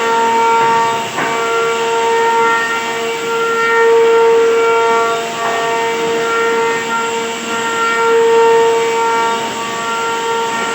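Power woodworking machine running with a steady high whine over a hiss, with a short click about a second in.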